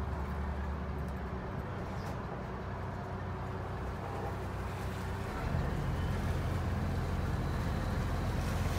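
Engine of a passenger boat running steadily under way, a low drone that grows a little louder about five seconds in.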